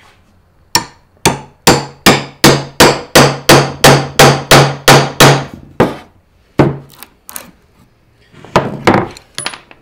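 A hammer drives the claw of a steel cat's paw nail puller into a wooden board under the head of a joist hanger nail. It makes a fast, even run of about fifteen ringing metal-on-metal strikes, roughly three a second. A few lighter knocks follow near the end as the claw is worked.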